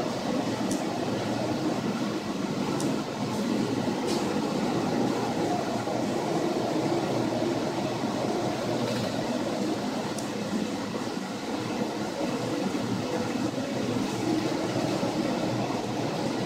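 Steady rumbling noise inside a ship's wheelhouse in a storm sea, the wind, waves and ship's machinery blending into one even roar, with a few faint ticks.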